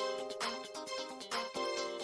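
Upbeat background music with a steady beat and a bouncing bass line, starting abruptly right after a moment of silence.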